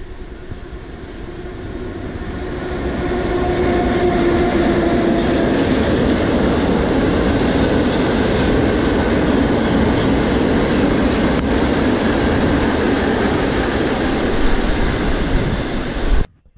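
Freight train of cement hopper wagons passing close by, a loud steady rumble of wheels on rail that builds over the first few seconds as the train nears. It cuts off suddenly near the end.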